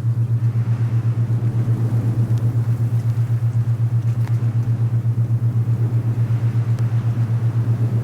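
Alpha binaural-beat tone: a steady low hum that throbs evenly several times a second, over a soft, gently swelling rush of wind.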